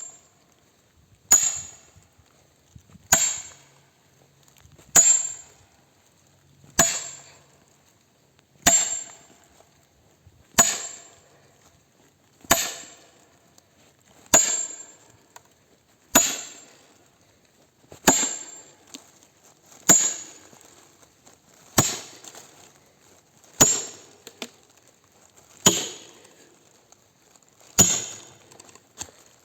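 Hammer and axe splitting beech wood: fifteen sharp, evenly spaced blows, about one every two seconds, each with a short high ring.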